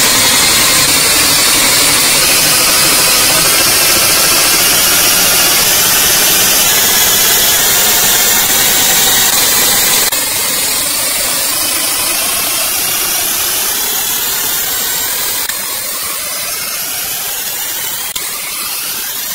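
Loud electronic static-like noise from the soundtrack, a dense hissing wash with a low rumble beneath. It steps down a little in level about halfway through and ends with a rising sweep.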